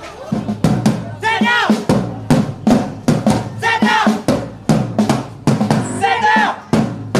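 Music with a busy drum beat, about three hits a second, over a steady bass note and a bending melodic line.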